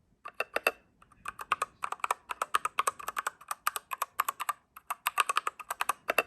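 Typing on a BOYI WK68 65% gasket-mount mechanical keyboard with yellow switches: quick runs of key clacks, with brief pauses about a second in and near five seconds. The typing is a sound test of the keyboard as it comes out of the box.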